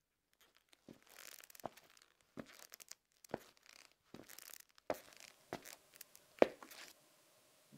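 Faint rustling and crackling of cloth and hair, with about eight light, sharp knocks at irregular intervals, the loudest about six and a half seconds in, as a person shifts about on a wooden stage floor.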